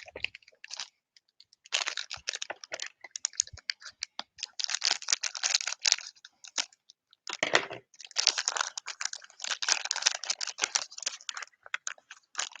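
Crinkling and tearing of a blind-bag wrapper being opened by hand, in several bursts of dense crackling with short pauses between them.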